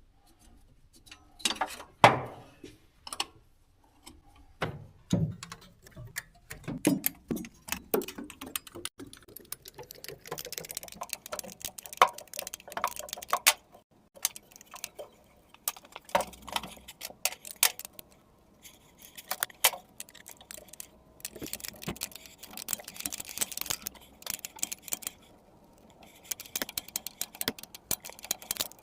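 Hand tools working metal fittings while the carburetor is unbolted from a 1948 Chevrolet Loadmaster truck: irregular metallic clicks and clinks, a few heavier knocks in the first several seconds, and stretches of rapid clicking later on.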